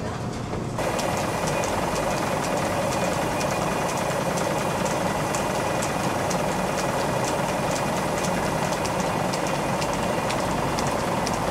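Flour mill machinery running steadily, with many faint ticks and rattles over a constant mechanical noise; it becomes louder about a second in.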